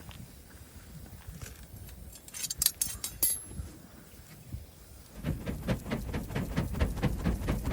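Wood fire crackling, with scattered pops and a few sharp loud snaps between two and three seconds in. About five seconds in, the crackling turns dense and louder over a low rumble.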